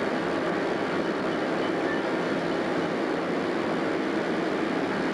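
Diesel passenger locomotive running as it rolls slowly along the tracks: a steady, even noise with no distinct clanks, squeals or horn, on an old film soundtrack.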